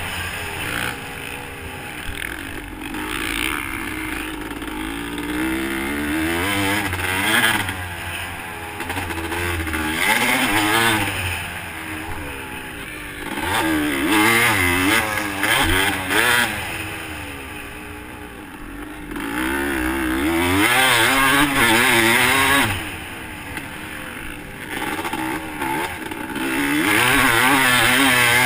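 Dirt bike engine heard from on the bike, revving up hard and falling back again and again as the rider opens and shuts the throttle around a motocross track.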